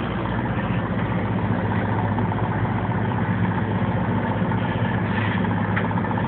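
Fishing charter boat's engine running steadily, a constant low hum with no change in pitch.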